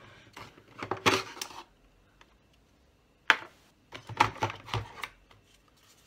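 Cardboard and plastic handling noise as a smoke alarm is lifted out of its box: rustling and scraping about a second in, a single sharp click a little after three seconds, then a short cluster of knocks and scrapes.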